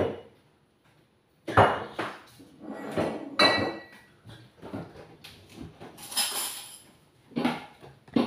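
Kitchen clatter: dishes and utensils knocking and clinking in a string of separate knocks, some ringing briefly, with a short hiss about six seconds in.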